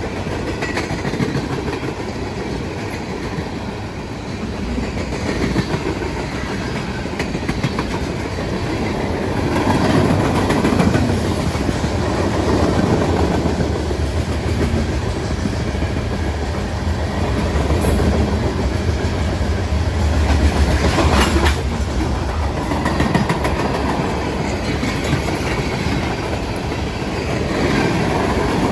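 Train cars rolling past on the rails, a steady rumble with the wheels clacking over the rail joints, swelling slightly louder about two-thirds of the way through.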